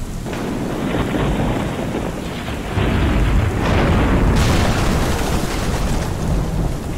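Thunderstorm sound effect: steady rain hiss with thunder, a deep rumbling boom swelling about three seconds in, and a sharper hissing crash about a second and a half later as the stone slab shatters.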